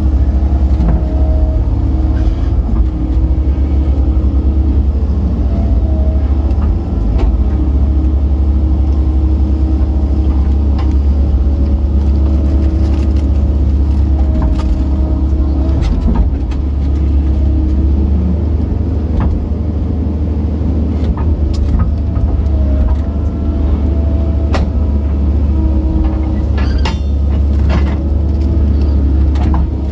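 Kobelco SK135SR excavator running steadily under load, heard from inside the cab as it digs and dumps pond silt, with occasional knocks from the machine at work.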